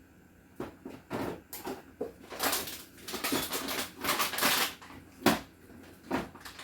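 Food packages and containers being handled and set down on refrigerator shelves: irregular rustling and crinkling of plastic with light knocks, and one sharp knock about five seconds in.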